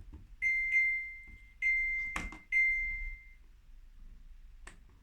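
Samsung washing machine control panel beeping as its buttons are pressed: four short, high electronic beeps in the first three seconds, each a single steady tone that fades out. A knock sounds about two seconds in, and a faint click near the end.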